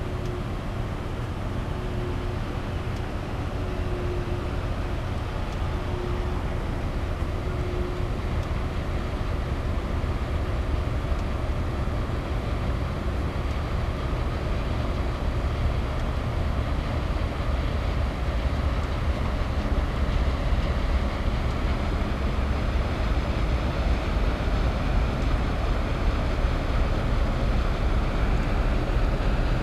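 The car ferry Kuniga's diesel engines running as the ship passes close by: a steady low drone with a hiss over it, growing gradually louder.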